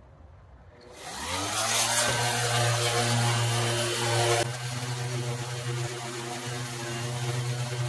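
DeWalt orbital sander switched on about a second in, its motor whirring up in pitch and then running steadily. It is buffing a fresh polyurethane coat with a black Scotch-Brite pad under very light pressure.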